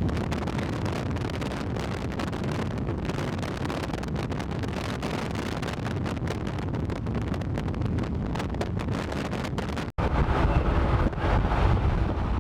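Wind rushing and buffeting over the microphone of a moving car, with a steady low rumble underneath. It cuts off for an instant about ten seconds in and comes back louder.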